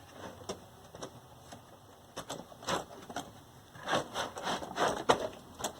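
Irregular clicks, taps and light knocks of hands handling parts at the back of a vintage tube TV set, unclipping the 75-to-300-ohm antenna adapter and freeing the chassis. The clicks are scattered, with a denser run of them a little after halfway.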